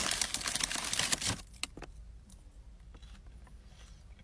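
Light crackles and clicks of eating fries from a paper bag, dense for the first second and a half, then a few scattered clicks over a quiet, steady car-interior hum.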